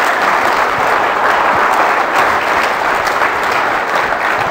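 Audience applauding at the end of a talk: steady clapping from many hands in a lecture hall.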